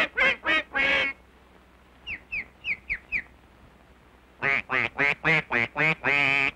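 Cartoon duck voices quacking in quick runs of short calls, with five short, high, falling peeps in between; the last run ends in one longer quack.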